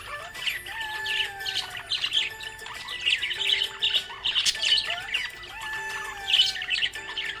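Budgerigar chirping and chattering in quick, short chirps, with music playing underneath.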